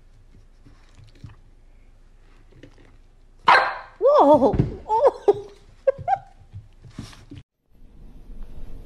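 Puppy barking in a run of short, high, yappy barks that begin about three and a half seconds in; a steady hiss follows near the end.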